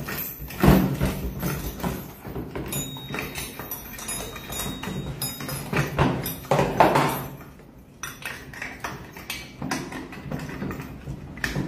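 Irregular clinks and taps of small metal nuts, bolts and hand tools being handled as parts are assembled and tightened.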